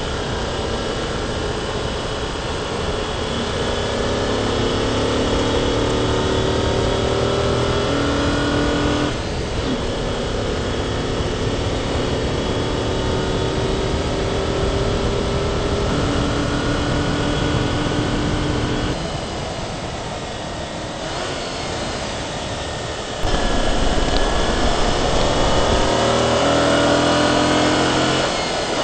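Car engine heard onboard, accelerating through the gears: its pitch climbs steadily, drops sharply about nine seconds in at a gear change, and climbs again. It eases off around nineteen seconds, then comes back louder and deeper about twenty-three seconds in and climbs once more, with wind and road noise throughout.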